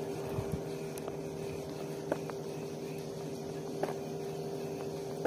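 Steady, unchanging engine hum, with a few light clicks while a spinning reel is cranked to retrieve a lure.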